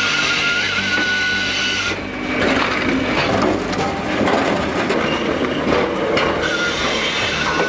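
Hakki Pilke 42 firewood processor working, its machinery running with a steady whine while logs are cut and split, with scattered knocks of wood. The whine drops out about two seconds in and comes back near the end.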